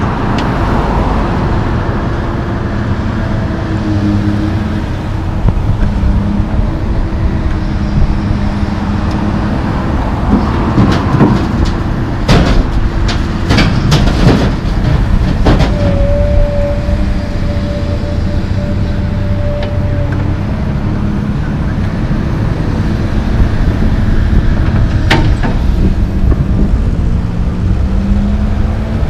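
Komatsu PC220 LC excavator's diesel engine running steadily, with a burst of loud clattering impacts about halfway through as a bucketload of broken concrete chunks drops into the steel box of a single-axle dump truck. Passing road traffic is heard as well.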